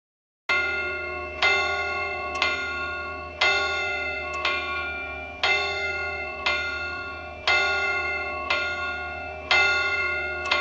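A bell striking the twelve o'clock hour, about once a second for roughly eleven strikes, each ringing on into the next. It starts suddenly and cuts off abruptly near the end.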